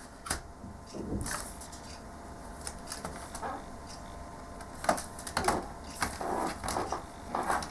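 Scattered light plastic clicks and taps as a replacement backlit laptop keyboard is handled and lined up in a Dell laptop's keyboard bay, with a few sharper knocks about five to six seconds in.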